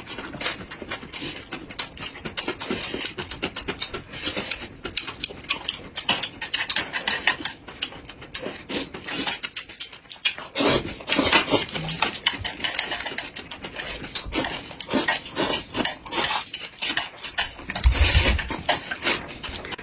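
Close-miked eating sounds: rapid wet chewing and mouth clicks, with louder noodle slurping around the middle and a loud slurp from a plate near the end.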